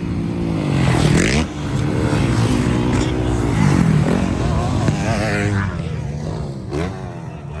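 Motocross bikes revving hard, the engine pitch climbing and dropping several times as they accelerate and shift.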